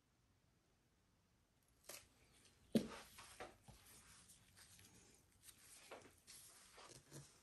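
Faint scraping and tapping from a palette knife working wet acrylic paint on a canvas, starting about two seconds in, with one sharper knock just under three seconds in.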